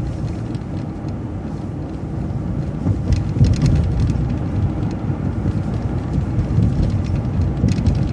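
MCO ViewMaster transit bus driving along the road, its engine and tyre noise making a steady low rumble that swells slightly about three seconds in.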